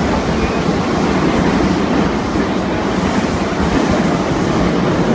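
Steady running noise of a subway train heard from inside the moving carriage.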